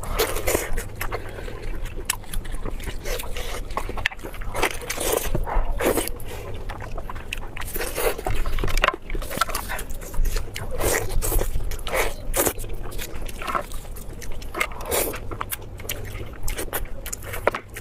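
A person chewing and biting food close to the microphone: a continuous run of irregular short eating noises.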